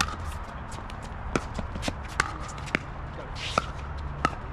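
Pickleball rally: paddles popping against the plastic ball in a quick exchange, about half a dozen sharp pops roughly every half second, with shoes scuffing on the court.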